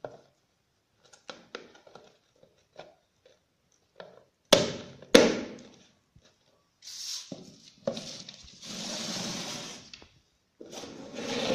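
A plastic food container being handled: a few light clicks and taps, then two sharp knocks about half a second apart as its snap-on lid is pressed down, followed by scraping and rustling of the container and paper on the table.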